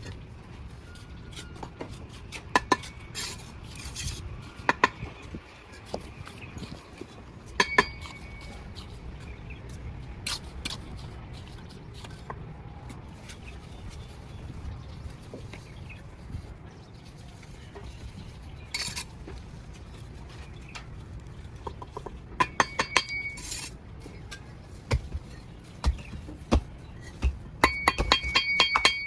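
Steel mason's trowel striking bricks and mortar, giving sharp ringing clinks, scattered singly at first and in quick runs of taps later on, over a low steady rumble.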